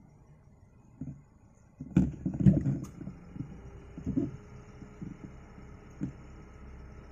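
Handling noise from the air rifle and its scope camera: a cluster of sharp clicks and knocks about two seconds in, then a few softer thumps spaced about a second apart.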